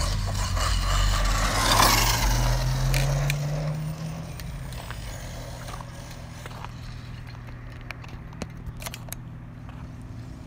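Arrma Outcast 6S RC truck running on asphalt: its electric motor whines up in pitch over the first few seconds with a rush of tyre and grit noise, then the sound drops away sharply about four seconds in.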